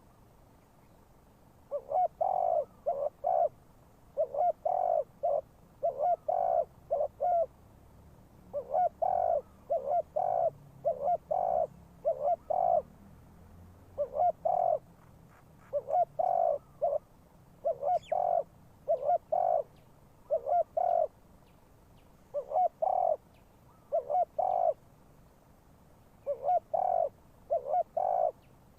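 Spotted dove (decoy bird) cooing: repeated phrases of three to five short coos, a new phrase every one to two seconds after a short pause at the start.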